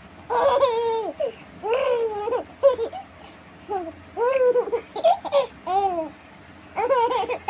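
A baby cooing and laughing in a string of about eight short, high-pitched squeals and coos that rise and fall in pitch, with brief pauses between them.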